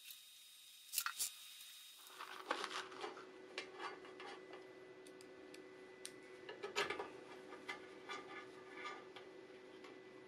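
Light metallic clicks and clinks of a hex key working bolts on a cast iron band saw frame, a couple of sharper clicks about a second in and many small ones after that. A faint steady hum comes in about two seconds in.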